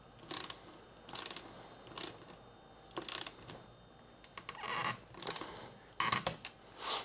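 A ratcheting torque wrench clicking in short bursts, about one a second, as it is swung back and forth to tighten the nut on a battery-cable lug.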